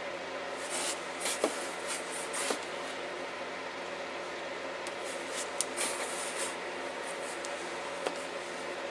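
Synthetic round watercolour brush stroking over damp watercolour paper: soft, scratchy swishes in two short clusters, with a few light ticks.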